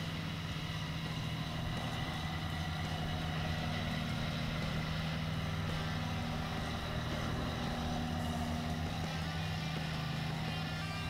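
John Deere tractor's diesel engine running steadily under load as the tractor drives through deep mud.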